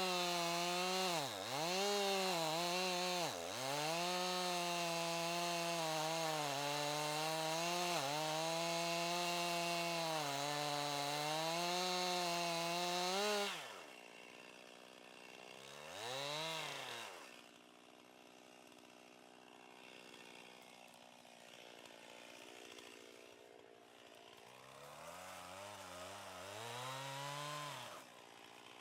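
Two-stroke chainsaw cutting pine at full throttle, its pitch dipping briefly under load a couple of times early on. About 13 seconds in it drops to a low idle, is revved once briefly, idles, then revs up again and drops off near the end.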